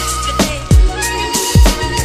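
Background music: a beat with deep, falling bass kicks under held melodic notes.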